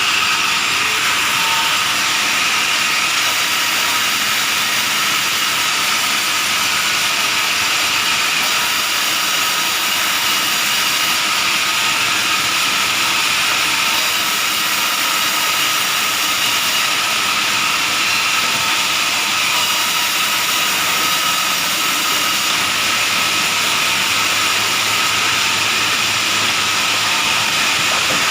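Sawmill machinery running steadily, a loud, even hiss with a steady high whine that does not change or pause.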